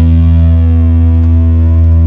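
Background music: a loud, steady, distorted drone holding sustained notes.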